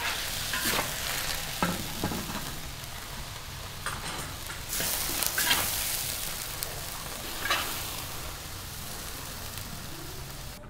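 Napa cabbage sizzling in a large iron wok as a metal ladle stirs it, with a few sharp clicks and scrapes of the ladle against the pan.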